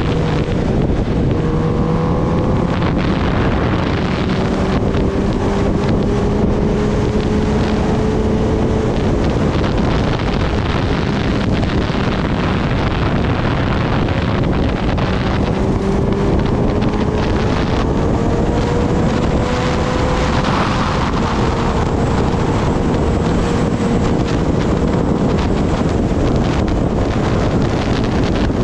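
Heavy wind noise on the microphone over a Kawasaki Ninja ZX-10R's inline-four engine running at speed, its pitch slowly rising and falling.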